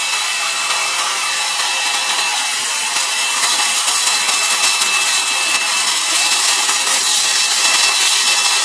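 Hot-air round brush (blow-dryer brush) running steadily as it dries and styles damp hair: a continuous rush of blown air with a faint steady high-pitched motor whine.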